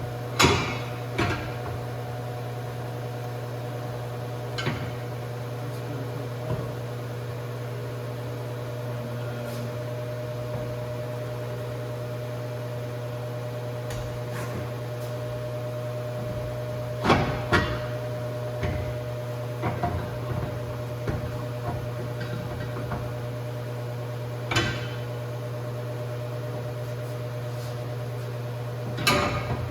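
Steady low hum with scattered short knocks and clanks of tools and parts being handled while fitting subframe bushings. The knocks are loudest about half a second in, twice around seventeen seconds in, and near the end.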